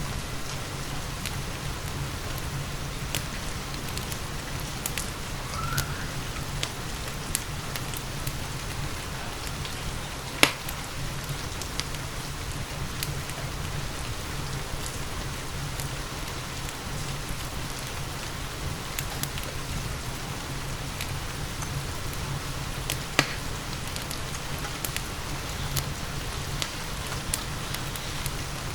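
Steady rain together with a crackling wood fire in a fireplace. Scattered small pops run throughout, with two louder sharp pops, one about a third of the way in and one near the end.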